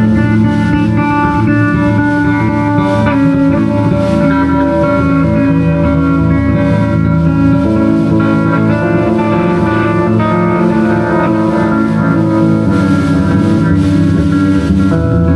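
Improvised live band music from a jam session, guitar to the fore, with many held notes layered over a steady low end.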